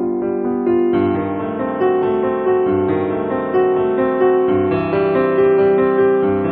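Background music: gentle piano playing a melody over sustained chords.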